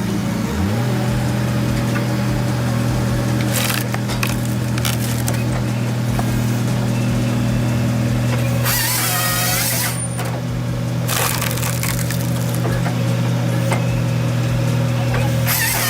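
Mini-excavator-mounted firewood processor running: a steady engine hum, dropping in pitch about half a second in. The processor's saw cuts through a log twice, about nine seconds in and again near the end.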